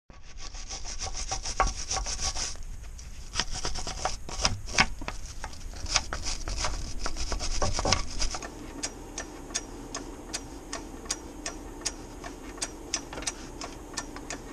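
Ratchet wrench with a tube extension working loose a large nut on the front lower control arm of a Chevy P30 chassis: scraping at first, then a long run of evenly spaced clicks, about two or three a second, through the second half.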